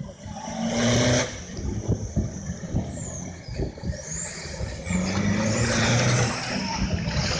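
Off-road 4x4 trucks driving past through a shallow river ford, their engines revving up about a second in and again about five seconds in, with water spraying from the tyres.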